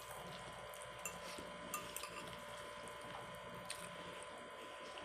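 Faint eating sounds of someone eating spaghetti: a few small clicks of a fork against a plate and wet mouth sounds, over a faint steady background hum.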